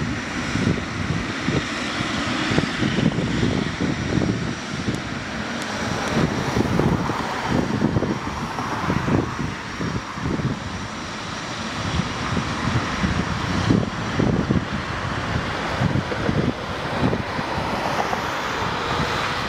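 Jet engines of a Boeing 777 airliner running steadily as it rolls on the runway, with wind buffeting the microphone in irregular low rumbles.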